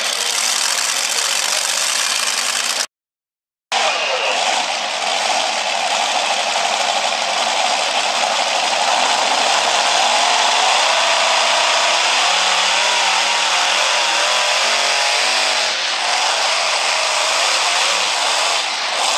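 Supercharged engines of a multi-engine modified pulling tractor running loudly, the pitch wavering up and down as they are revved. The sound drops out completely for about a second near the start.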